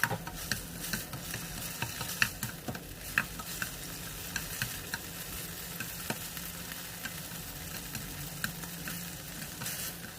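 Pork pieces frying in hot oil in a pan with a steady sizzle, stirred continually so the utensil scrapes and clicks against the pan many times. The meat is at the browning stage.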